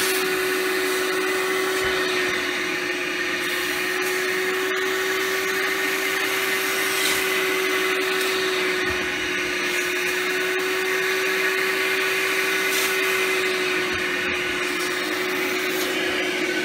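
Rug Doctor carpet shampooer running steadily, its upholstery hand tool sucking rinse water out of a cloth truck seat. The motor gives a constant whine over a steady rush of suction.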